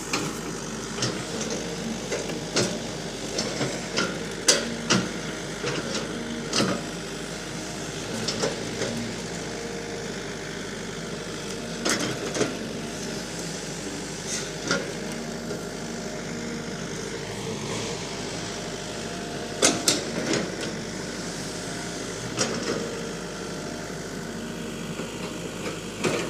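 Hitachi EX60 mini excavator's diesel engine running steadily while it digs, with irregular sharp clanks from the bucket striking stony soil, a cluster of the loudest about twenty seconds in.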